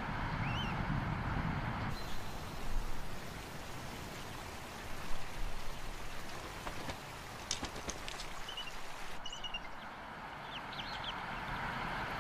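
Steady rushing outdoor noise with a few faint, short high-pitched bird chirps and some soft clicks.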